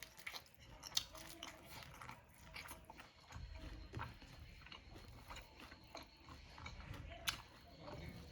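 A person chewing and biting crispy fried whole fish, with scattered sharp clicks, the loudest about a second in and near the end.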